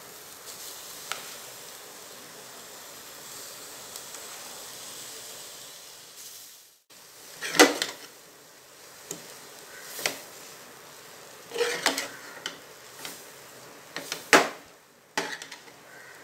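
Crumbled paneer frying in butter in a metal pan: a low, steady sizzle at first, then, after a brief break about seven seconds in, a metal slotted spoon scrapes and knocks against the pan as the paneer is stirred, in a string of sharp clacks.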